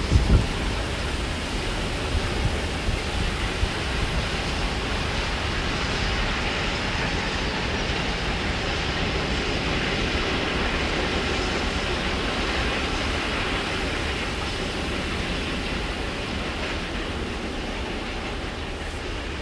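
Freight train wagons rolling along the track: a steady rumble and rush of wheel noise with a few louder knocks in the first few seconds, slowly fading toward the end.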